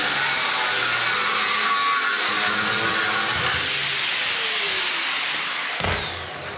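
Angle grinder with a thin 1 mm steel cutting disc running at full speed and cutting, a steady loud grinding hiss. In the second half a whine falls steadily in pitch as the motor winds down, and the sound stops about six seconds in.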